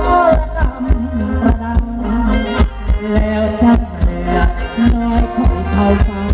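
Thai ramwong dance band music playing at full volume: a steady drum beat over a heavy bass line, with sustained melody instruments above.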